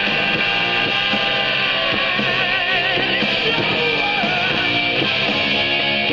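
Rock music with guitar playing through a pair of 2-inch waterproof motorcycle speakers in metal housings.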